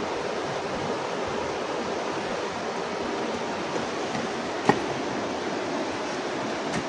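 Steady rushing background noise, even and unchanging, with one sharp click about two-thirds of the way through.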